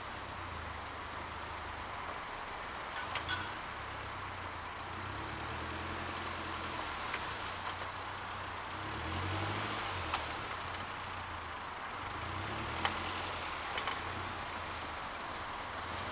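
Suzuki Jimny JB43 engine running at low revs while crawling off-road, its pitch slowly rising and falling. Several sharp knocks and brief high squeaks are heard along the way.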